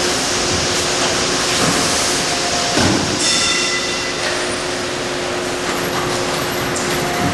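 CNC hydraulic tube-bending machine running: a steady mechanical hum with a constant tone, a single clunk about three seconds in followed by a brief high whine, and short mid-pitched machine tones.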